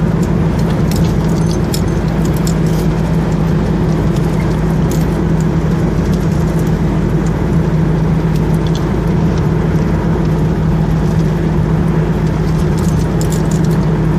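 Car driving steadily along a road: an even engine and tyre drone with a steady low hum, and light scattered ticking rattles.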